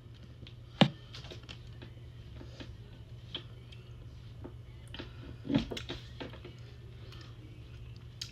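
Eating and handling sounds from a Blizzard cup: scattered small clicks and taps, with a sharp click about a second in and a louder knock about five and a half seconds in.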